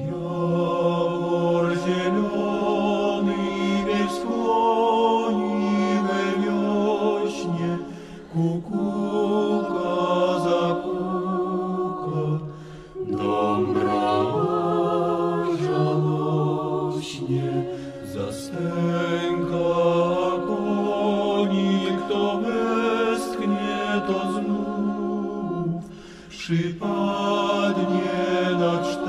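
A choir singing a cappella in long, held chords with vibrato, without clear words, in phrases separated by short breaks.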